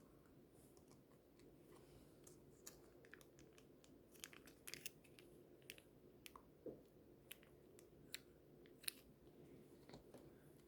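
Faint eating sounds: a dozen or so soft, sharp crunches and clicks scattered over a low steady hum.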